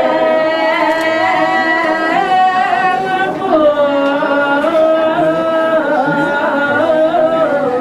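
Slow singing of long, drawn-out notes that waver and step from one pitch to the next, like a ceremonial chant.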